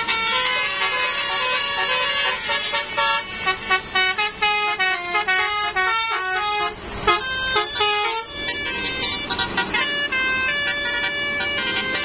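Tour bus telolet horn, a multi-tone air horn, playing a melody of quick notes stepping up and down, then holding longer tones near the end. A short burst of noise cuts in about seven seconds in.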